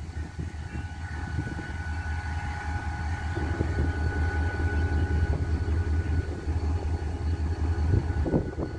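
Diesel locomotive engines running: a steady low rumble that grows louder as the approaching train's locomotive nears, with a faint steady whine above it.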